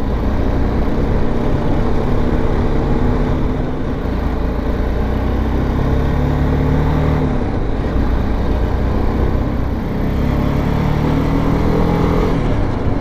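BMW G 310 GS single-cylinder motorcycle engine running under way, its pitch climbing, dropping about seven seconds in, then climbing again near the end. A heavy wind rumble on the microphone runs under it.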